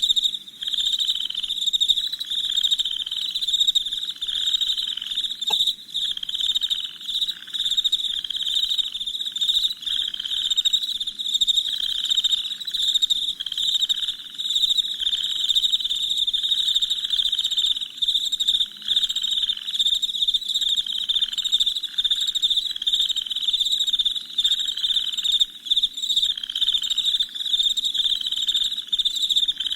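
Night chorus of crickets chirping continuously in a dense, high trill, with a lower pulsing call repeating every second or so underneath.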